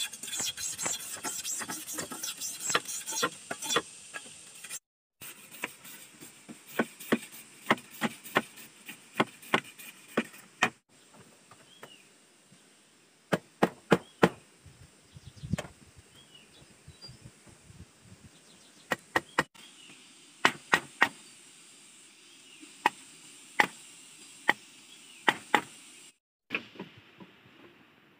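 Steady high insect buzz with rustling in the undergrowth for the first few seconds, then a machete striking bamboo: scattered sharp knocks, often in quick clusters of two to four.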